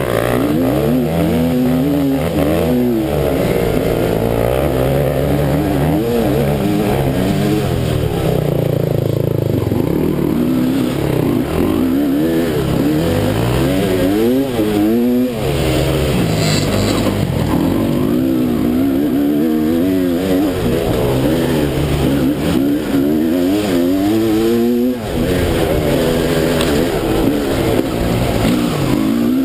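Dirt bike engine heard close up while riding a rough trail. Its pitch rises and falls again and again as the throttle is opened and closed through the bumps and turns.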